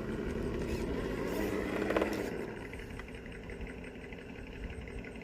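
Electric motor and geared drivetrain of an RC rock crawler whining steadily as it crawls, swelling briefly about two seconds in and easing off after.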